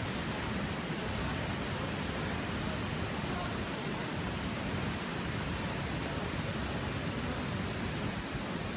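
Steady rush of a fast-flowing river over rocks: an even, unbroken noise.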